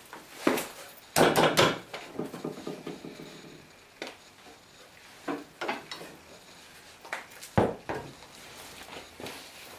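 Wooden knocks and metallic clinks from a wooden beam shifting in a cast-iron machinist vise on a plywood base as weight comes off it and the vise is handled. A loud cluster of knocks about a second in, a few lighter ones after, and another sharp knock near the end.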